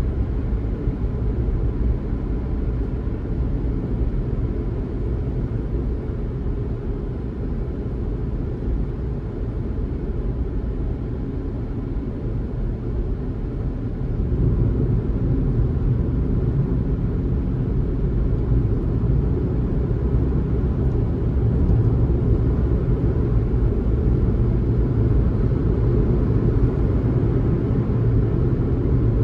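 A car's driving sound at cruising speed: steady tyre and road rumble, getting a little louder about halfway through.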